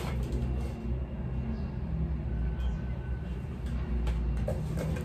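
Low, bass-heavy background music, with a few faint clicks and rustles of plastic packaging being handled about four seconds in.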